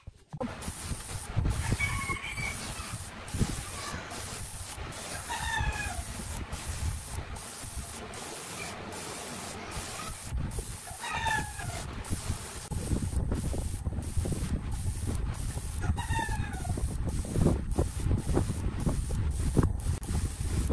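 A rooster crowing four times, each crow a short falling call, over a steady hiss that cuts out briefly at regular intervals, with low knocks and rumbles underneath.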